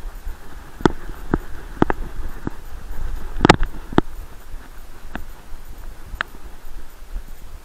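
A Groenendael Belgian Shepherd running through dry leaf litter, heard from an action camera strapped to its back: a steady low rumble of body movement and wind on the microphone, with the rustle of leaves. Irregular sharp clicks and knocks come through it, about nine in all, the loudest about three and a half seconds in.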